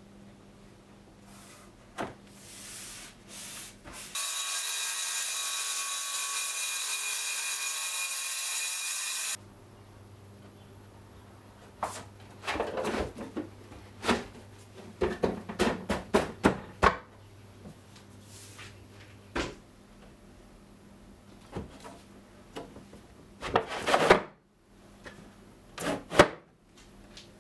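Workshop tool noise, likely from cutting polycarbonate sheet. A steady machine-like sound runs for about five seconds and cuts off suddenly. It is followed by a run of quick scraping strokes, then a few more scrapes and knocks near the end.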